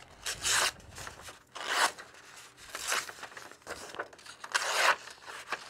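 Knife blade slicing through a sheet of paper in a paper cut test of a nearly sharpened edge: about four quick swishing, rasping cuts roughly a second apart.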